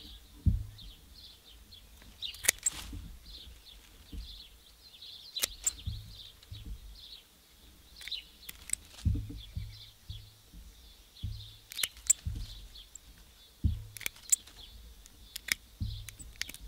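Hand pruners snipping the lower leaves off a green grapevine shoot: a series of sharp, separate snips a second or more apart, with low thuds in between. Steady high chirping goes on in the background.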